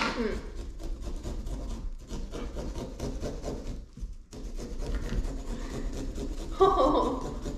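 Small serrated pumpkin-carving saws rasping back and forth through pumpkin rind, two being worked at once in quick, uneven strokes. A brief vocal sound near the end.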